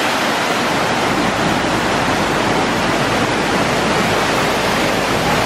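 Webster Falls, a waterfall, rushing steadily: a dense, even wash of falling-water noise.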